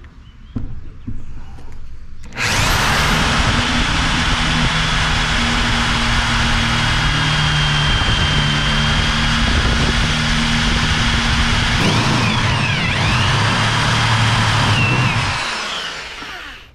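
Corded electric drill running under load for about thirteen seconds, turning a Warrior step drill bit to bore a hole out to the 9/16 step, with a steady motor hum and a thin high whine from the cutting; a few knocks come just before it starts, and it winds down near the end.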